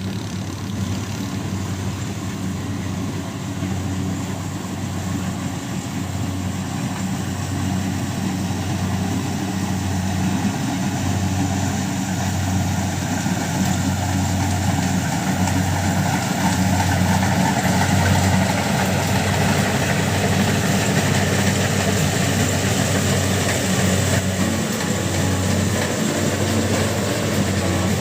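Kubota DC-70 Plus combine harvester's diesel engine running steadily, with a low hum and a wash of machinery noise over it; it grows somewhat louder from about ten seconds in.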